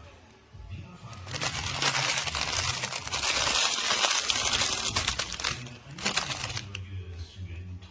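Crinkly material being crumpled and rustled, starting about a second in and going on for about five seconds.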